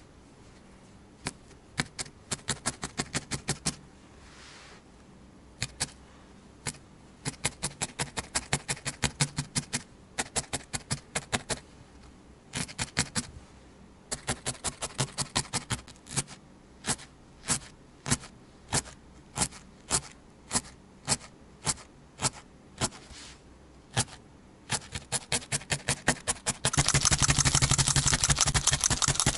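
Felting needle stabbing repeatedly through wool roving and burlap, in runs of quick, sharp pokes about three to five a second. Near the end the strokes run together into a louder, faster continuous rasping.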